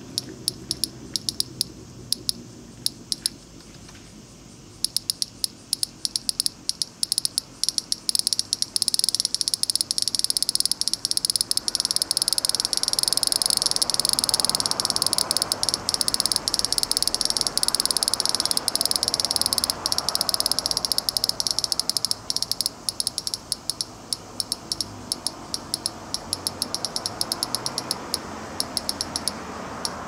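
A cicada calling from a tree trunk: scattered clicks quicken into a dense, high sizzling buzz about eight seconds in, hold for some fifteen seconds, then break up again into scattered clicks near the end.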